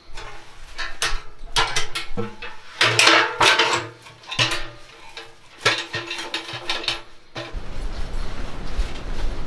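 Metal clanking and knocking from a small sheet-metal wood stove as its folding steel legs are set out and the stove is stood upright, each knock ringing briefly. Near the end the clanks give way to a steady low rumble.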